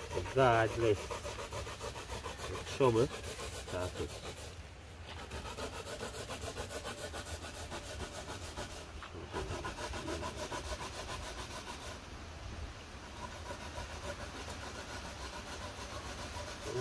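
Coconut being grated by hand on a metal grater: a steady run of rhythmic rasping strokes.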